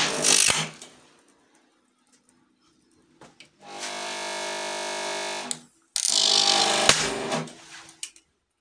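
An overloaded PC power supply failing: a loud crackling, hissing burst at the start, a steady electrical buzz for about two seconds in the middle, and another hissing, crackling burst about six seconds in, with a sharp crack within it.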